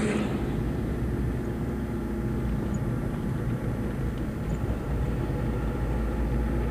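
Car engine and road noise heard from inside the cabin, a steady low hum as the car drives along.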